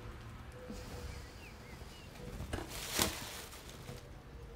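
Quiet room with two light knocks, about two and a half and three seconds in, as small party leftovers are tossed into a cardboard box.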